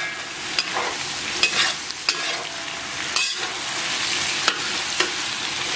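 Pork belly and chicken pieces sizzling in oil in a wok, stir-fried over low heat, with a metal spatula scraping and clicking against the wok every second or so.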